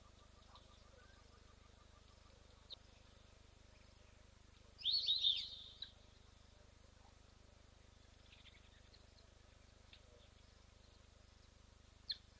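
Wild bird calling: one loud flurry of rapid high chirps lasting about a second, about five seconds in, and single short chirps near three seconds and near the end, over faint steady outdoor background.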